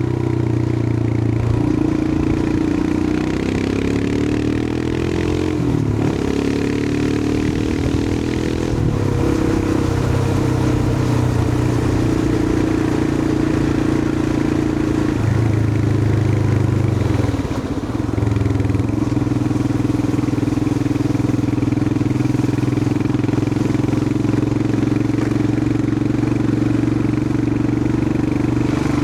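Royal Enfield Himalayan 411's air-cooled single-cylinder engine running under way. The note rises and falls with several gear changes and dips briefly about two-thirds of the way through.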